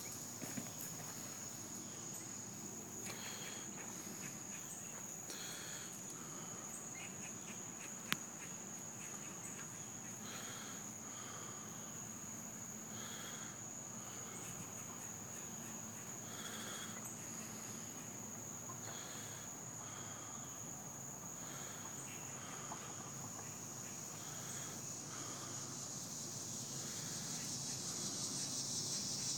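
Insects singing in a steady, high-pitched drone that grows louder near the end. Faint short calls repeat every second or two beneath it, and there is one sharp click about eight seconds in.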